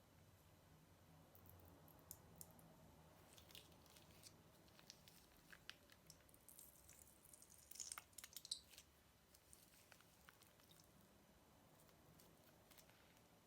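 Faint squishing and crackling of slime being handled, with a short cluster of louder crackles about eight seconds in.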